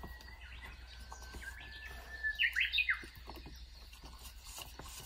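A songbird singing: one long, steady whistled note, then a quick, louder flourish of notes about two and a half seconds in.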